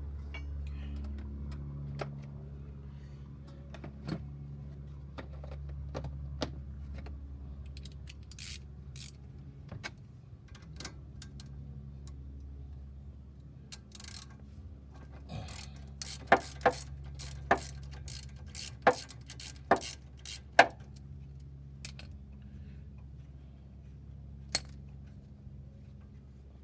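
Hand tools and sockets clinking and knocking against metal while a front strut is being unbolted: scattered sharp metallic clicks, with a run of louder ones about two-thirds of the way through, over a steady low hum.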